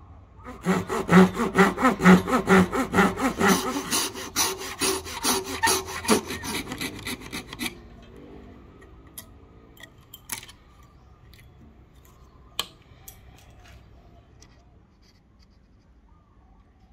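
Hand saw cutting a slot into the top of a hardwood axe handle for its wedge, in quick back-and-forth strokes about three a second, stopping about halfway through. Then faint scraping as a knife blade is drawn through the slot, with a few light clicks.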